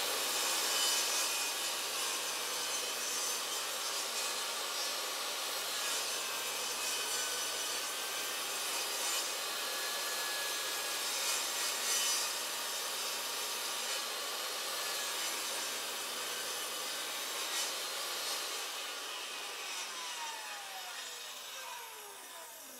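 DeWALT DWE7485 table saw running and cutting a groove in a wooden board. Near the end the saw is switched off and its whine falls in pitch as the blade spins down.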